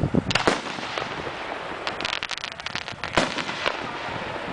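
Consumer-grade (1.3G) aerial firework shells bursting overhead: a loud bang at the very start with a few more bangs in the next half second, a rapid run of pops about two seconds in, and another sharp bang a little after three seconds.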